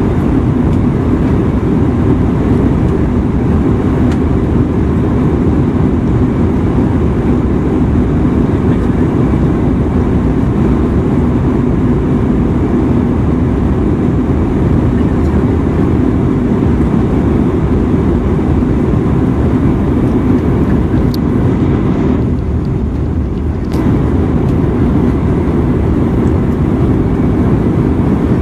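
Steady in-flight cabin noise of an Airbus A319-132 heard from a window seat beside its IAE V2500 turbofan: an even, deep drone of engine and airflow. Near the end it briefly thins for about a second and a half, with a couple of faint clicks.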